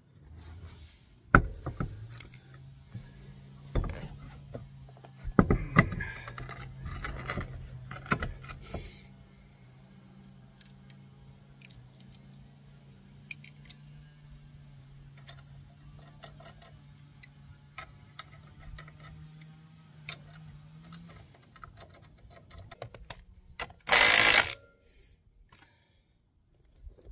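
Knocks, clanks and metallic jingling as a muddy side-by-side wheel is handled and fitted over wheel-spacer studs, most of them in the first third. Near the end comes one short, loud burst from a cordless power tool.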